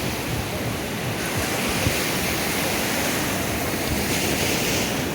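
Sea surf washing onto the beach, a steady rush that swells twice, with wind rumbling on the microphone.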